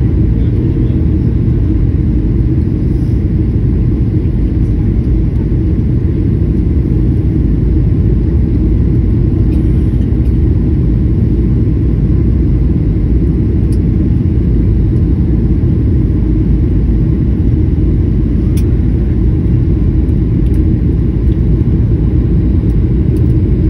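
Steady low rumble of engine and airflow noise inside an airliner cabin, even throughout.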